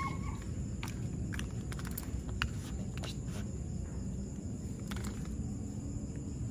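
Quiet outdoor background with a low steady rumble and a faint high steady whine, broken by a few light clicks and taps from people and leashed dogs shifting on brick paving.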